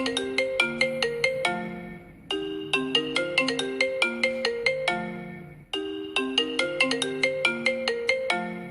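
iPhone ringtone: a short melody of quick, bright pitched notes, repeating about every three and a half seconds, each pass fading out before the next starts.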